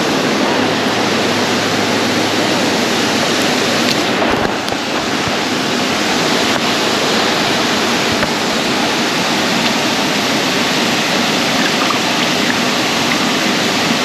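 Waterfall running: a steady, loud rush of falling water.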